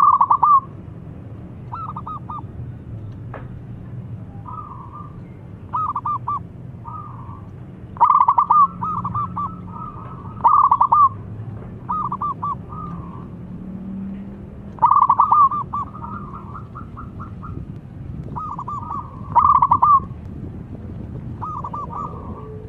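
Zebra dove (perkutut) cooing: short phrases of quick staccato coos, repeated every second or two, some loud and some much softer, over a steady low background hum.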